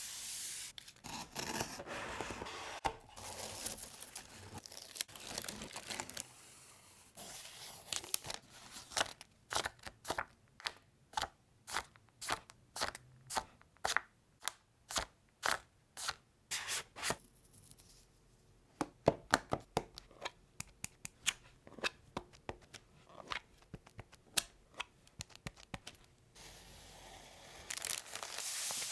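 Paper and plastic stationery packaging being handled and torn open, rustling and crinkling. In the middle comes a long run of sharp ticks and taps, evenly spaced about two a second at first, then irregular.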